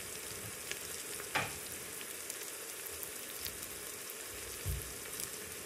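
Sliced onion and spices sizzling in hot olive oil in an Instant Pot's stainless steel inner pot on sauté: a steady frying hiss with scattered small crackles. Two brief soft knocks come through, one about a second and a half in and one near the end.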